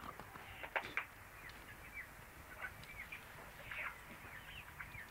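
Small birds chirping in many short, quick calls, with two sharp knocks about a second in.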